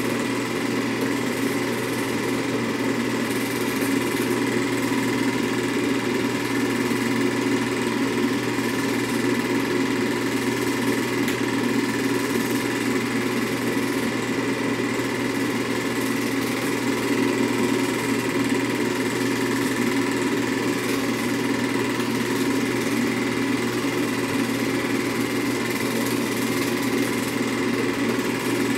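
Film projector running with a steady, unchanging mechanical whir and hum.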